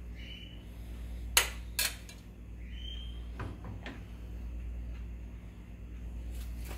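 A metal ladle clinks twice against an aluminium cooking pot about a second and a half in, followed by a few softer knocks, as it is lifted out and set down, over a steady low hum.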